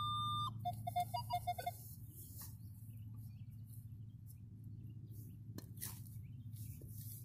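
Metal detector audio: a steady high tone cuts off about half a second in. A rapid run of short beeps follows for about a second, the detector's response to a buried metal target. After that only a low steady hum remains.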